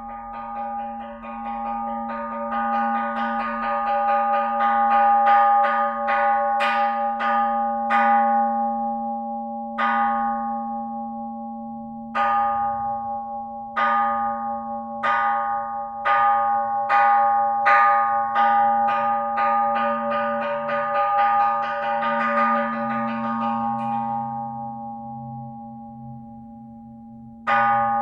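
Buddhist temple bell struck over and over, each hit ringing on under the next. A fast run of strikes gives way to slower single strikes that quicken again, ending with one last strike near the end.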